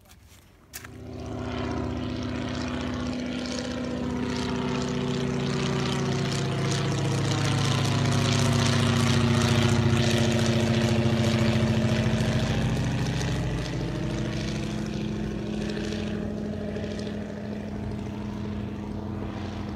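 Propeller-driven biplane flying overhead, its piston engine droning steadily. It grows louder toward the middle and then fades, the engine note dropping in pitch as the plane passes.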